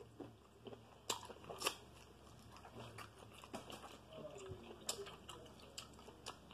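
A person chewing shrimp close to the microphone: soft wet mouth smacks and scattered sharp clicks, the loudest a little after a second in and again near the middle.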